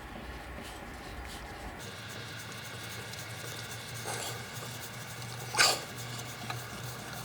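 Light knocks and one sharp metallic clack about five and a half seconds in, as the parts of a rusted steel grease-gun oiler are handled during disassembly, over a steady background hum.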